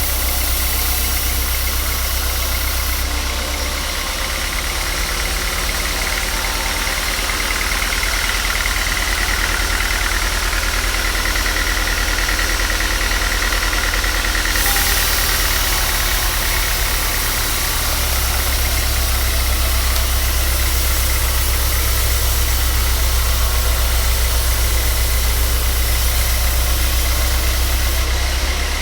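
A woodworking machine's motor running steadily, with a faint high whine, for the whole stretch; its sound shifts abruptly a few times.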